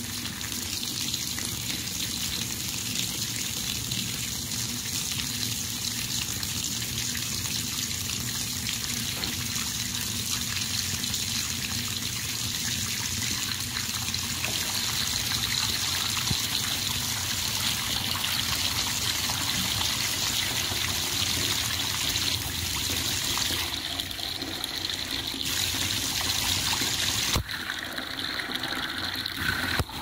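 Water running over and around a bathtub's chrome plughole strainer: a steady rush with bubbling. Its texture changes abruptly a couple of times near the end.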